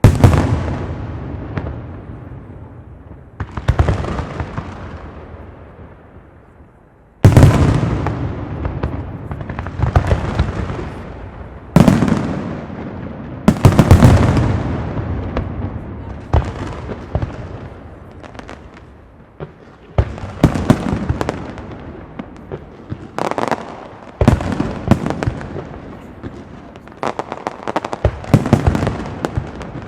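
Aerial firework shells from a Pirotecnia Zaragozana castillo bursting one after another, each loud bang trailing off. The bursts come further apart at first, then thicken into quick clusters of sharp cracks in the second half.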